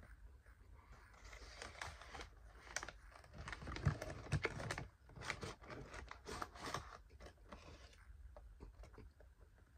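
Dry cornstarch being chewed in the mouth: a run of small clicks and crackles, busiest around the middle and thinning out near the end.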